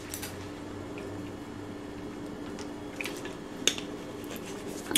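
Sipping water from a plastic water bottle, with light liquid sounds, then a few short clicks and crackles of the plastic bottle and its screw cap being handled toward the end, over a steady low hum.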